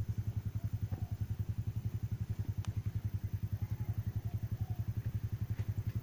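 A small engine running at idle nearby, a steady even throb of about ten beats a second.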